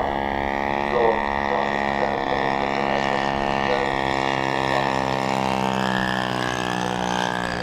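Two-stroke DLE 85cc gas engine of a giant-scale RC Fokker D.VII biplane running steadily in flight, a droning propeller buzz that holds a fairly constant pitch.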